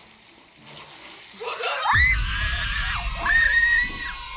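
A body splashing into a swimming pool with a sudden heavy whoosh of water about two seconds in, under long, high-pitched screams that rise and fall.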